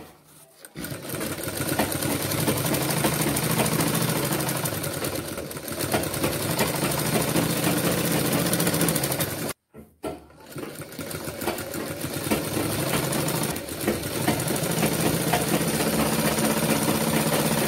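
Sewing machine running steadily as it stitches a side seam through white cotton apron fabric. It starts up about a second in, cuts out abruptly a little past halfway, then starts again and runs up to speed.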